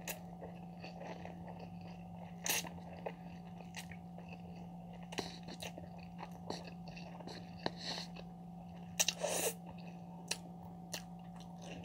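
A person slurping and chewing instant noodles close to the microphone, with many small wet mouth clicks and two louder slurps, about 2.5 s and 9 s in. A faint steady low hum runs underneath.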